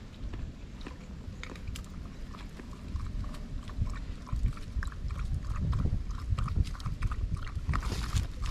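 Large Jindo-mix dog lapping water, a quick run of small wet clicks, a few a second, over the low rumble of wind on the microphone.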